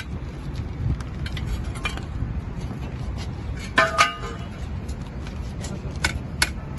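Scattered sharp metal knocks from hammering at the mould fittings of a fresh thermite rail weld being stripped, over a steady low rumble. A short horn-like tone sounds about four seconds in.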